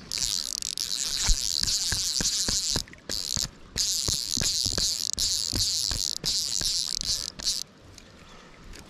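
Fly reel's clicker buzzing loudly as fly line is pulled off it by hand, in long pulls with short breaks about three seconds in and near the end, with light knocks from handling the rod and reel.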